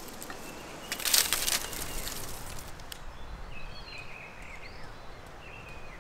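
Dry reed thatch rustling and crackling as a man works on the roof peak, loudest in a brief scraping burst about a second in. About halfway through, small birds start chirping over a low background rumble.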